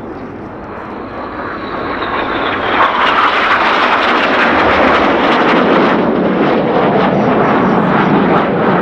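BAE Hawk T1 jet with its Rolls-Royce Turbomeca Adour turbofan passing low at display speed: a faint high whine at first, then the jet roar builds over about three seconds and stays loud, with a crackling rumble.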